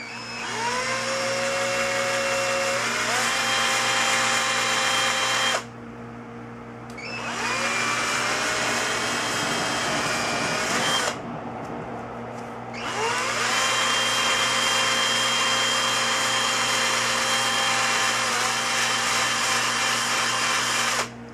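Electric drill spinning a Mosin-Nagant firing pin as a makeshift lathe while polishing wadding is held against it. It runs steadily, drops off briefly twice, about 6 and 11 seconds in, and each time speeds back up with a rising whine.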